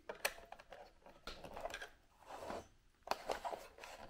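Small screwdriver driving a screw into a plastic alarm clock case: a run of small clicks and creaking scrapes as the screw turns in the plastic, with a few sharper clicks near the end as the case is handled.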